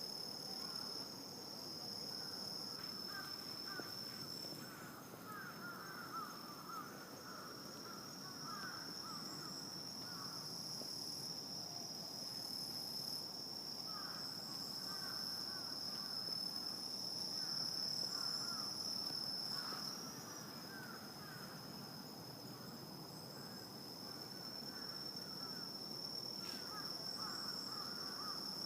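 Night insect chorus, crickets trilling in one steady high-pitched tone, with bursts of lower, rapid chirping calls that come and go every few seconds.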